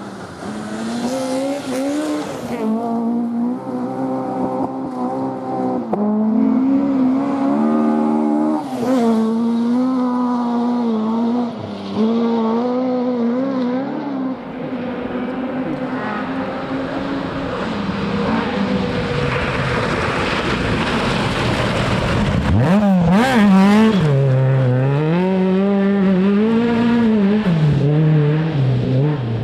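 Rally car engine revving hard, its pitch climbing and dropping again and again with gear changes and lifts off the throttle. A rushing noise builds as the car comes closer and is loudest about three-quarters of the way through as it passes, with the revs swinging on after.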